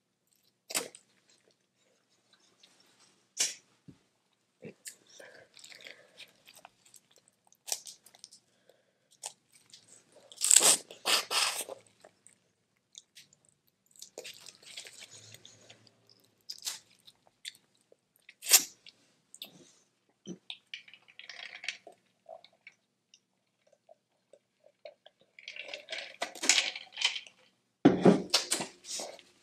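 Boiled crawfish being eaten close to the microphone: sharp cracks of shells being broken and peeled, with chewing in between. The cracking comes in louder, denser bursts about ten seconds in and again near the end.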